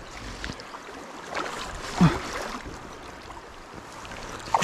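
Water splashing around a hooked brown trout being landed in shallow river water: two sharp splashes, about two seconds in and right at the end, over the steady wash of the flowing stream.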